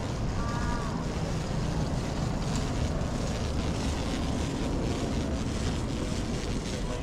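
Steady rumbling background noise of an airport check-in hall, with a brief faint high tone about half a second in.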